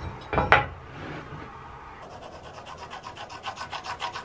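A wooden board knocks twice as it is shifted, about half a second in. Then a pencil scratches quick, even back-and-forth hatching strokes across the board, shading the waste area of a lap joint, growing louder toward the end.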